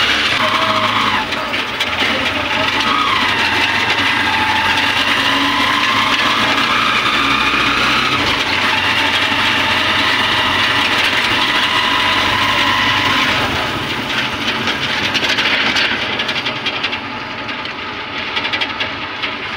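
Honda motorcycle engine of a sidecar tricycle running under way, its pitch shifting up and down with the throttle. It turns a little quieter about fourteen seconds in.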